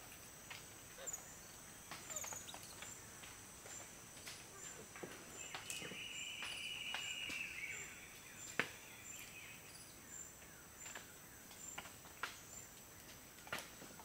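Rainforest ambience with a steady high insect sound and short chirps repeating about twice a second. Scattered sharp clicks and snaps come from white-faced capuchins biting and handling palm fruit. A buzzing call of about two seconds comes near the middle.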